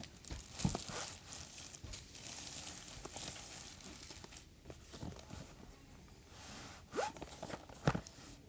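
Keyboard packaging being handled and opened: rustling and scraping, with a few sharp knocks near the end.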